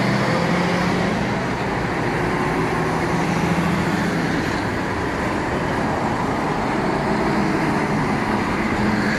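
Busy road traffic passing close by: the steady rush of tyres and engines. A container truck's diesel engine is heard at the start and fades after about a second and a half. Near the end a Volvo tipper truck and trailer's diesel engine comes in as it passes.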